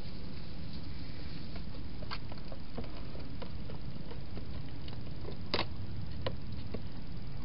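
A wild hedgehog moving into a plastic feeding box and up to its food bowls: scattered light clicks and taps, irregular, with the loudest about halfway through. A steady low background noise runs underneath.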